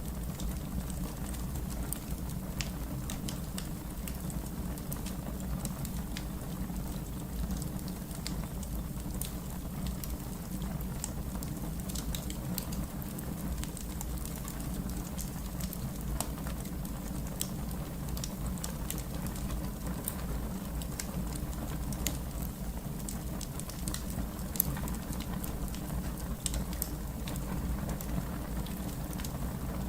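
Fire crackling: a steady low rumble with frequent small sharp pops and snaps, and one louder pop late on.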